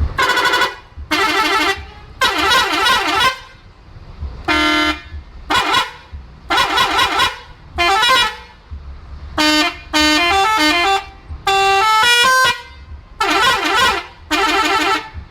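Bus telolet horn, a multi-tone musical horn, played in about a dozen short loud blasts. In the middle the notes step up and down one after another as a little tune.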